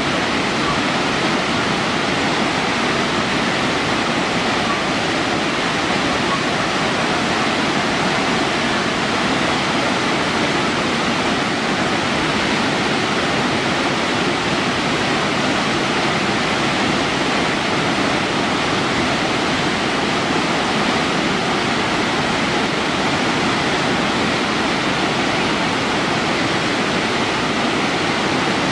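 Burney Falls' water rushing and splashing down a cliff face in many separate streams, a loud, unchanging roar of falling water.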